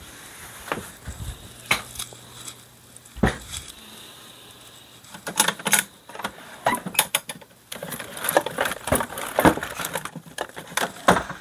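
Small hard objects clicking and clattering as they are handled: a few separate knocks at first, then a busier run of rattling clicks through the second half.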